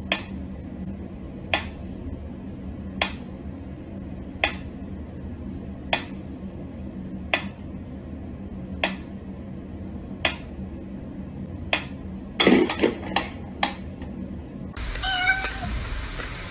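Mechanical pendulum metronome ticking slowly, one sharp click about every second and a half. About three-quarters through, a cat meows over a few quick clicks and knocks.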